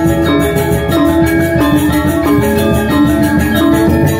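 Balinese gamelan gong ensemble playing a tabuh: bronze metallophones ring out rapid, evenly repeated struck notes over kendang drums, loud and steady.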